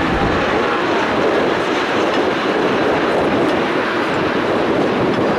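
Jet engines of an Airbus A321 airliner on final approach with landing gear down, a steady loud roar.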